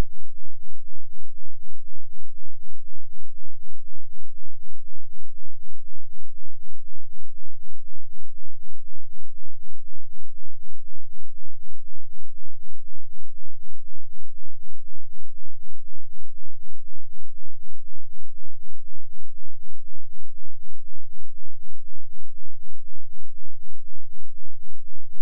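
2 Hz sine-wave bass test tone, far below hearing, coming through as a steady low throb whose loudness pulses evenly about four times a second.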